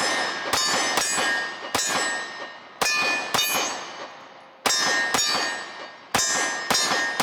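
Glock 26 9mm pistol fired in quick pairs, about ten shots, each answered by the ringing clang of struck steel targets.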